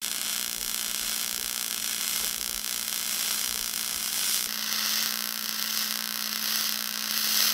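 MIG welding arc on aluminum, fed from a spool gun: a steady hissing buzz with a constant hum under it, changing in tone about four and a half seconds in.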